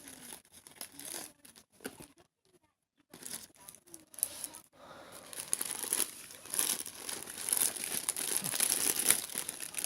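Packaging being unwrapped and torn open by hand: a few scattered rustles and taps at first, then steady, louder crinkling and tearing from about five seconds in.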